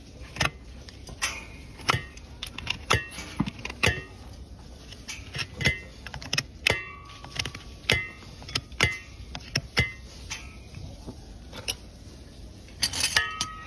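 Farrier's metal tools striking and clinking at irregular intervals, sharp taps with a short metallic ring after many of them. A louder burst of noise comes near the end.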